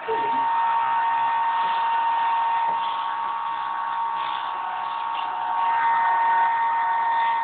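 Art Tech Cessna 182 RC plane's electric motor running under throttle, a steady whir with a constant high-pitched beep-like whine running through it, which is stronger on the phone's microphone than in the room. It gets a little louder about six seconds in.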